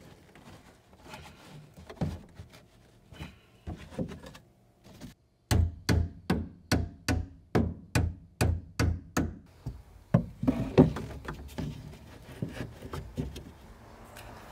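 Hammer blows at a car's rear deck opening: scattered taps and knocks, then a steady run of about a dozen strikes at roughly three a second, then more uneven knocks.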